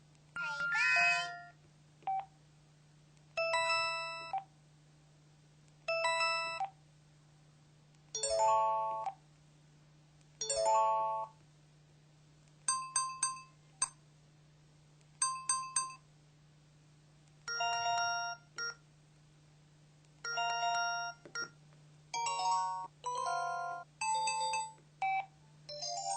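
KTF-X7000 mobile phone playing its built-in sound effects one after another: short electronic chimes and jingles, a dozen or so, each under about a second with brief pauses between, some as quick runs of beeps. A steady low hum lies underneath.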